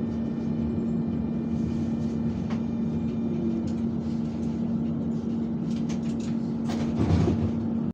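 Alsthom TFS tram running, heard from inside the passenger car: steady running noise with a constant hum, a knock about two and a half seconds in and a few more near the end.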